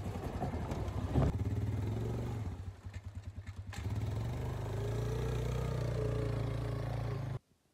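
Suzuki ATV engine running as it is unloaded from a pickup bed and ridden off, with a clunk about a second in. From about halfway, the engine note rises steadily as it drives away, then cuts off suddenly near the end.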